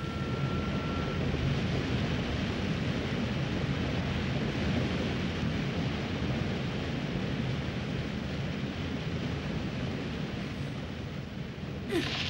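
Cartoon waterfall sound effect: a steady rush of falling water, with a brief sudden burst near the end.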